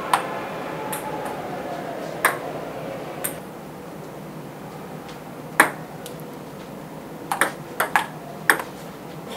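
Table tennis being played: a ping-pong ball clicking sharply off paddles and the table. There are a few single hits with gaps between them, then a quicker run of hits in the last two seconds.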